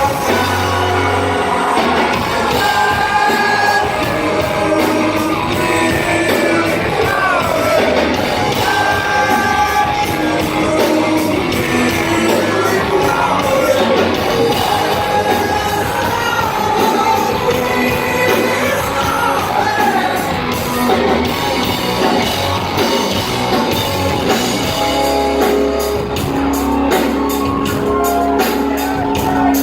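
Live rock band playing loud, with a male lead vocalist singing over amplified guitars, bass and drums, heard in a large room.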